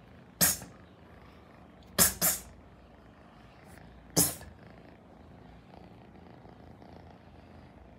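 British Shorthair kitten close to the microphone: four short, sharp, breathy sounds, one about half a second in, two close together about two seconds in and one about four seconds in, over a faint steady background.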